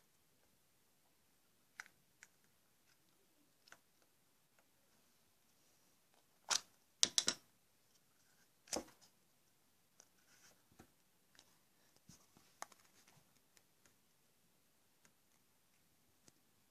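Quiet handling of slime and small plastic containers: scattered clicks and taps, the loudest a cluster of sharp clacks about six and a half to seven and a half seconds in and another about nine seconds in, followed by faint crackles.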